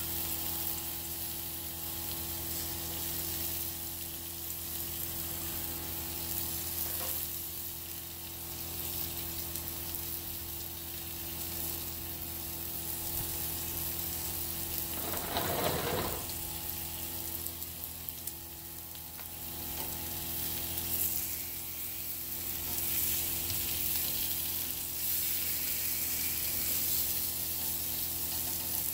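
Whole chickens sizzling on a perforated grill pan over a charcoal grill: a steady frying hiss with a steady low hum beneath it. A brief louder noise comes about halfway through.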